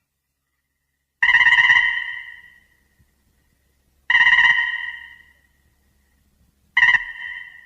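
King Ghidorah's cry from the 1964 film, a shrill pulsing trill, sounded three times. Each call starts suddenly and fades away over about a second and a half; the third is shorter.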